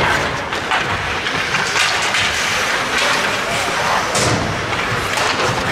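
Ice hockey play on a rink: skates scraping the ice, with repeated knocks and thuds of sticks, puck and bodies against the boards.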